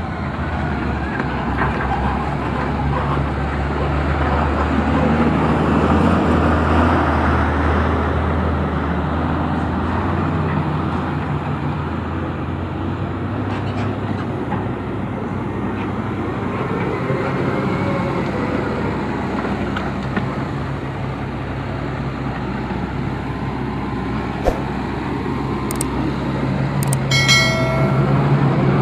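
Heavy construction machinery's diesel engine running steadily, its low drone rising and falling a little in level. Near the end there are a few sharp clicks and a brief pitched tone.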